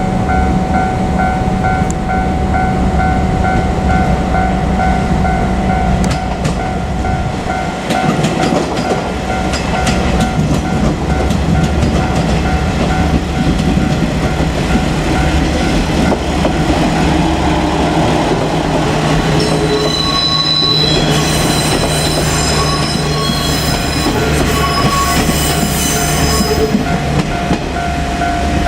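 Level-crossing warning bell ringing in a steady repeating pattern as a two-car JR Kyushu KiHa 47 diesel railcar set passes. Its diesel engines and wheels on the rails build to a heavy rumble about eight seconds in. High squealing tones from the wheels come in near the end.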